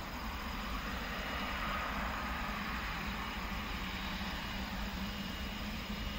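Jet engines of a Boeing 777-300 airliner running steadily at a distance: a low rumble with a faint whine above it, swelling a little about two seconds in.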